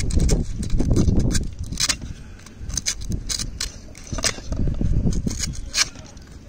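Emery paper rubbing against a clothes iron's rusted thermostat contacts to clean off the rust: irregular scraping strokes with sharp scratchy clicks of metal.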